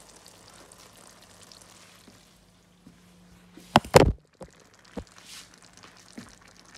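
Carrot-and-onion marinade sizzling faintly in a frying pan under floured fish steaks, then two sharp knocks about four seconds in, followed by a few lighter clicks.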